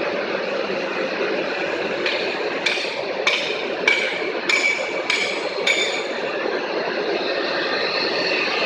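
A machine running steadily, with a run of about seven sharp metallic clinks roughly half a second apart in the middle.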